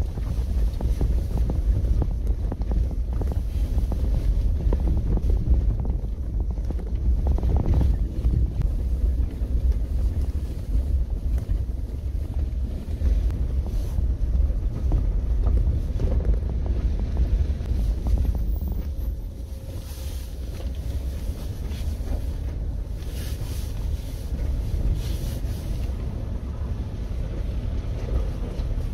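Cabin rumble of a diesel Mahindra Thar driving on a rough dirt mountain track: a steady low drone of engine and tyres, with some wind noise. It eases off slightly a little past the halfway point.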